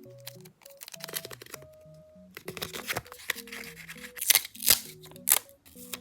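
Soft background music with a simple melody, over crinkling and rustling paper-craft handling noise, with a few sharp, loud crackles past the middle, as a paper squishy is worked and stuffed.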